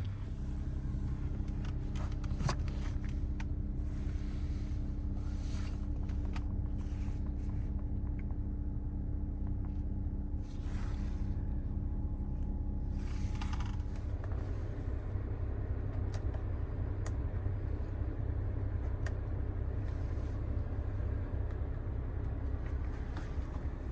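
Steady low hum inside a car, with a few light clicks scattered through. A steady tone in the hum drops away about fourteen seconds in.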